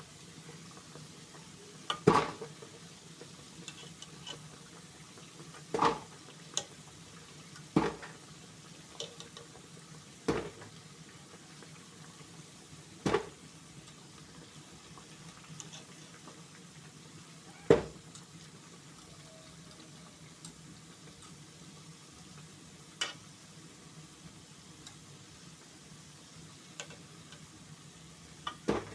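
Mandazi dough pieces deep-frying in hot oil with a steady faint sizzle, and a utensil knocking sharply against the pan every few seconds as the pieces are turned.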